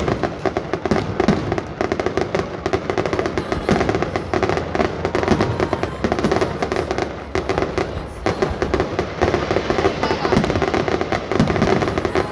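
Aerial fireworks display: many shells bursting in quick succession, a dense, continuous run of bangs and crackles.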